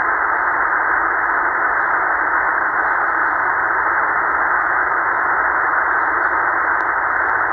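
Sihuadon D-808 shortwave receiver in upper-sideband mode on 14.224 MHz, playing a steady, muffled static hiss through its speaker, with the treble cut off by its narrow 2.2 kHz voice filter. This is 20 m band noise with no voice coming through on the frequency.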